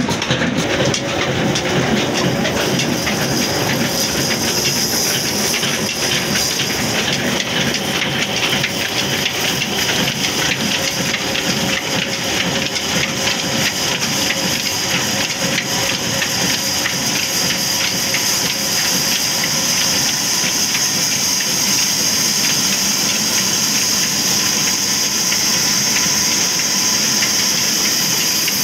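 Old diesel engine running steadily while it drives a wood-cutting band saw by belt, the saw machinery running with a steady high hiss over the engine's rumble.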